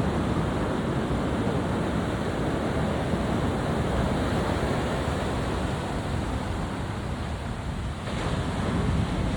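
Heavy ocean surf from a hurricane swell, a steady rushing wash of breaking waves with wind buffeting the microphone, easing briefly about three-quarters of the way through before building again.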